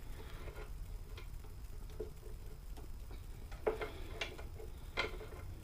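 Light metallic clicks and clinks from a mini bike's roller chain and hand tools being handled, a handful of separate ticks a second or so apart over a low steady hum.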